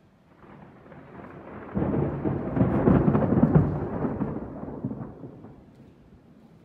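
A peal of thunder rolling in: the rumble builds from about half a second in, is loudest through the middle, then dies away over the last couple of seconds.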